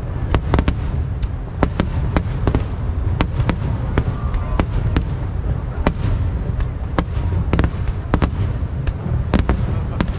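Aerial fireworks going off in quick succession: an irregular string of sharp bangs and crackles, two or three a second, over a continuous low rumble from the bursting shells.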